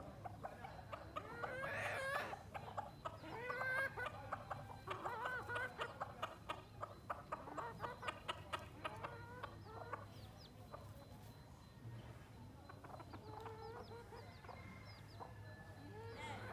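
Chickens clucking and calling, with pitched calls about two seconds in and a quick run of short clucks that thins out after about ten seconds. A low steady hum runs underneath.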